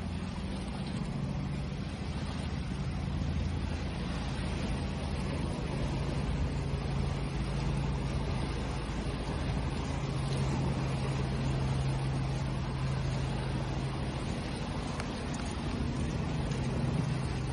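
Steady wash of ocean waves with a continuous low hum beneath it, slightly swelling about halfway through.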